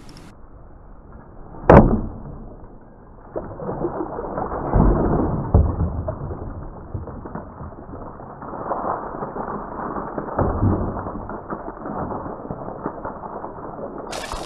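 A homemade mild-steel sword hitting and cutting through a plastic jug of liquid: one sharp hit a couple of seconds in, then a muffled, uneven rushing as the liquid gushes out of the cut jug onto the table.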